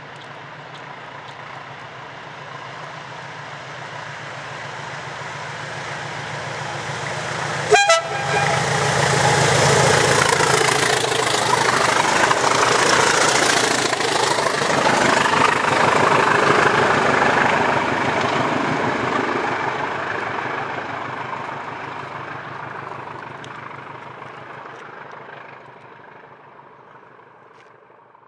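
A pair of English Electric Type 1 (Class 20) diesel locomotives working flat out, their eight-cylinder engines thrashing as they approach. One short horn blast sounds about eight seconds in. The engines are loudest as the pair pass, then fade away into the distance.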